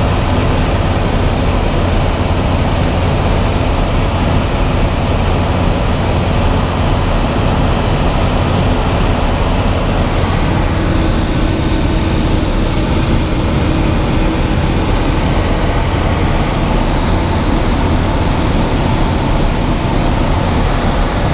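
Ultralight aircraft's engine and propeller droning steadily in level flight, heard from inside the cockpit with rushing air over it.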